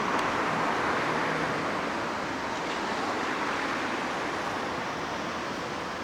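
Road traffic noise: a steady rush of passing vehicles that slowly fades.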